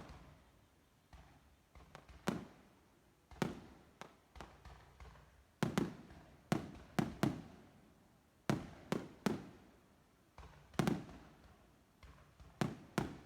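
Aerial fireworks bursting at irregular intervals, about a dozen sharp bangs, each followed by an echoing rumble, with a few in quick succession.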